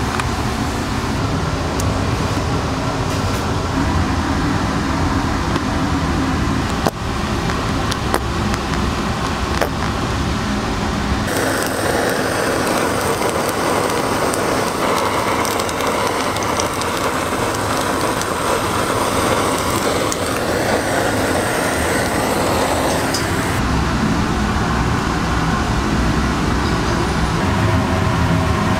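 Kitchen noise with a steady low hum and a few sharp clicks, then a handheld gas blowtorch hissing steadily for about twelve seconds as it sears shrimp on a steel griddle, cutting off sharply.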